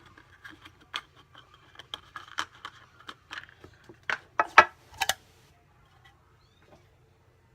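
Packaging and small plastic items being handled and moved aside: light rustling with a string of clicks and taps, the loudest cluster about four to five seconds in, then it goes quiet.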